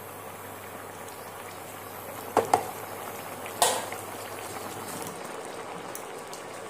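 Thin curry gravy of lentil cakes and potatoes simmering and bubbling in a nonstick pan. Three sharp knocks of a spatula against the pan, two close together about two and a half seconds in and one more a second later.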